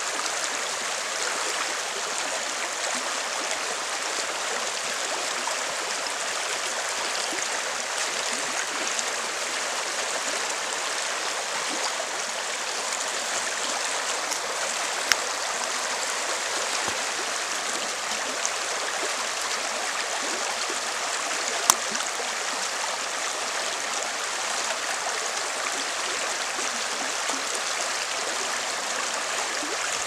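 River water rushing steadily over a shallow cobble riffle. Two short sharp clicks stand out, one about halfway through and one about two-thirds of the way through.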